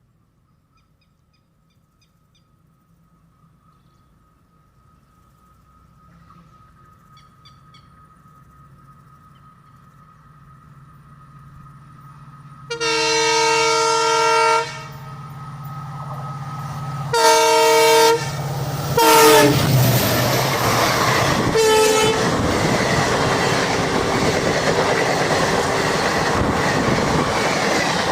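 Indian Railways train horn sounding as a train comes closer: the noise of the approaching train builds slowly, then there is a long loud horn blast a little before halfway, a second shorter blast a few seconds later and a brief third. The train then passes close by with a steady loud rumble and rattle of wheels on the rails.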